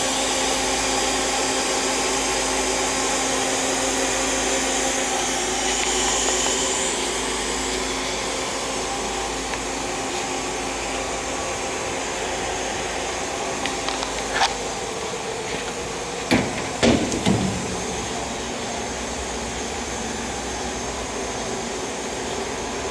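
Hardinge VMC800II vertical machining center running under power: a steady mechanical whir with a few fixed tones, easing slightly about a third of the way in. Two-thirds of the way through come a handful of short sharp clacks.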